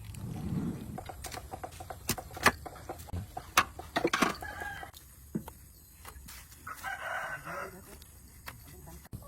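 A rooster crows once, for about a second, near seven seconds in, with chickens clucking. Sharp clicks and knocks come and go throughout and make the loudest moments.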